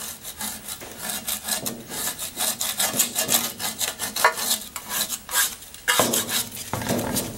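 Gritty scraping in quick, repeated strokes as old grime is scrubbed out of the inside of a 1941 South Bend 13-inch lathe's cast gear-train cover. There are a couple of heavier scrapes or knocks near the end.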